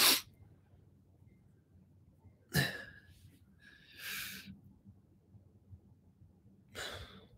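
A few short breath noises, sniffs and exhales close to a phone microphone, about three seconds apart, with quiet between them.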